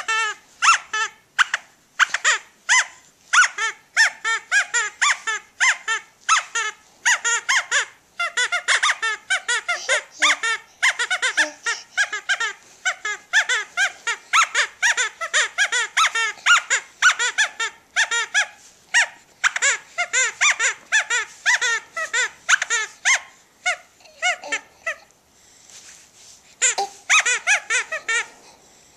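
Sophie la Girafe, a natural-rubber giraffe teething toy, squeaking over and over as it is squeezed, in quick runs of short squeaks broken by brief pauses, the longest a few seconds before the end.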